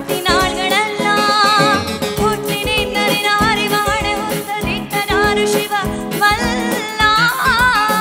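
Live Kannada light song (bhavageete): a woman singing an ornamented, wavering melody into a microphone over electronic keyboard accompaniment.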